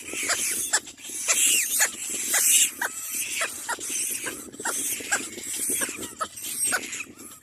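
Little black cormorant chicks calling: a rapid, uneven run of short cries, several a second.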